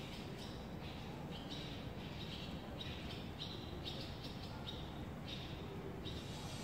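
Swallows twittering: a steady run of short, high chirps, about two a second, over a low background hum.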